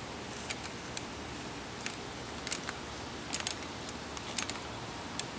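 Steady low background hiss with scattered faint, short clicks and ticks, about one a second.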